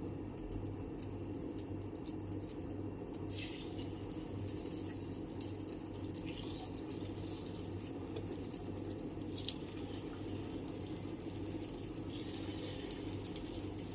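Dosa batter being spooned into the oiled cavities of a hot paniyaram pan, the oil crackling and pattering quietly, with a couple of sharper clicks of the spoon against the pan.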